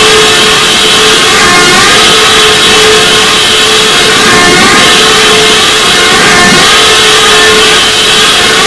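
Deliberately distorted, 'earrape'-style electronic noise played at near-maximum loudness, with a steady drone and warbling sweeps that repeat over and over.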